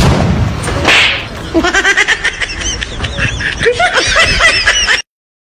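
High-pitched giggling laughter in quick repeated bursts, after a loud noisy rush in the first second. It cuts off suddenly about five seconds in.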